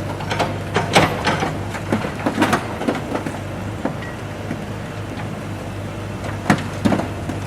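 Diesel loader's engine running steadily at a construction site, with irregular clanks and clatter of debris, heaviest in the first three seconds and again near the end.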